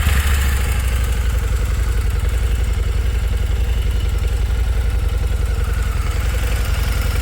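Harley-Davidson V-Rod Muscle's liquid-cooled Revolution V-twin running at a steady idle, with a deep, even pulse just after it has started.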